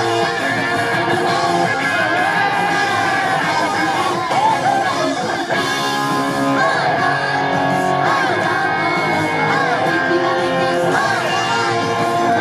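Live pop-rock song played over a PA, with a guitar loud in the mix and young women singing into microphones.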